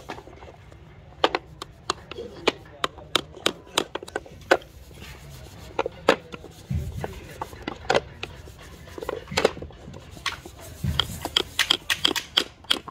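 Small hammer tapping tiny nails through a brass latch into a wooden box, a string of sharp light taps that come quicker and closer together near the end.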